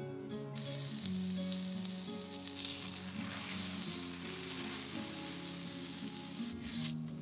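Butter sizzling as it fries in a hot frying pan, with a slice of bread frying in it. The sizzle starts about half a second in, is loudest around the middle and dies away near the end.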